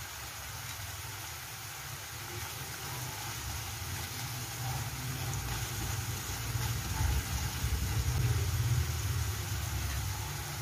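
Chopped tomato and onion frying in oil in a pan, sizzling steadily, with a wooden spatula stirring them partway through. Under the sizzle a low, engine-like rumble swells from about four seconds in, is loudest near the end and then eases.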